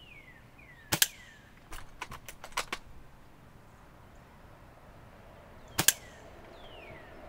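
Two shots from an airsoft L96 bolt-action sniper rifle, each a sharp double crack, about five seconds apart. A run of lighter clicks follows the first as the bolt is cycled. A bird repeats short falling whistles in the background.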